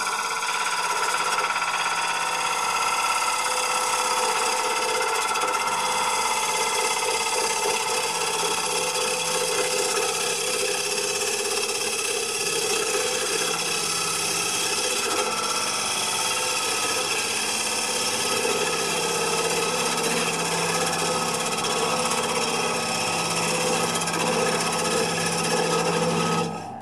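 Wood lathe running while a gouge cuts a spinning wooden blank, a steady cutting hiss over the lathe's motor whine. The gouge is riding with its bevel rubbing the wood, which keeps the cut stable.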